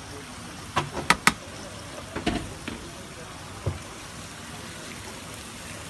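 Marinated chicken sizzling on a hot griddle tray with a steady hiss, broken by a few sharp clicks and knocks, three of them close together about a second in.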